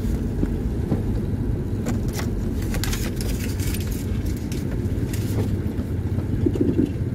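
Steady low rumble of a car's engine and tyres, heard from inside the cabin while driving slowly over a sandy dirt lot, with scattered light clicks and knocks.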